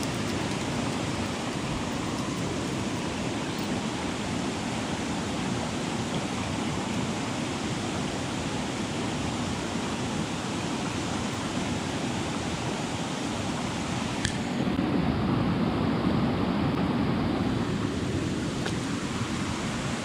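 A shallow stream running over a stony bed: a steady rushing of water. There is a short click about fourteen seconds in, after which the water is a little louder.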